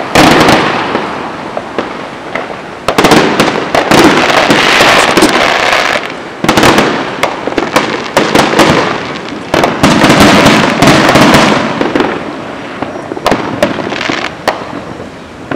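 Aerial fireworks going off: loud bangs and dense crackling come in waves every few seconds, with the biggest bursts right at the start, around three to four seconds in and around ten seconds in. The bursts ease off near the end.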